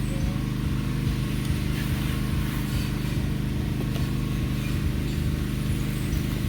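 Steady low mechanical hum of a running motor or engine, even in pitch and level throughout.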